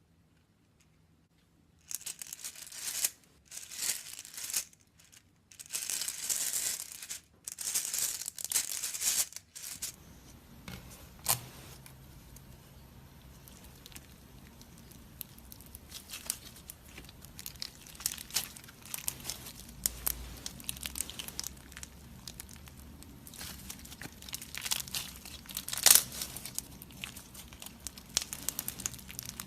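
Slime being squished and stretched by hand, crackling and crinkling. The noise starts about two seconds in as separate bursts, then from about ten seconds on runs as a steadier crackle with sharp pops.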